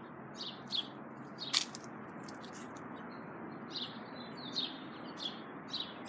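Parrots in a tree calling with short, repeated chirps, about one or two a second, over a steady background noise. One sharper, louder call comes about one and a half seconds in.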